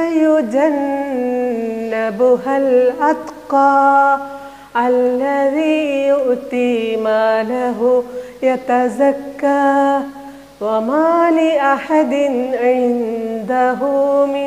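A woman reciting Qur'anic verses in Arabic in a melodic chant (tajweed recitation), drawing out long held vowels with short pauses between phrases.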